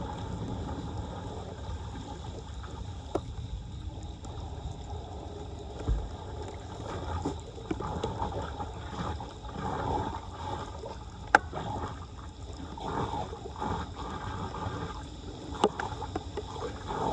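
Floodwater gurgling and flowing, with a few sharp knocks, the loudest about eleven seconds in.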